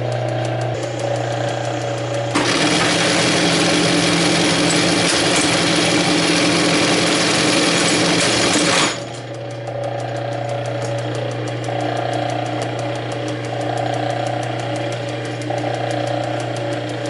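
Singer 71-34 buttonhole sewing machine running: a steady motor hum with fast, even ticking. About two seconds in, a much louder rushing clatter starts suddenly, lasts about six seconds and cuts off, leaving the hum and ticking.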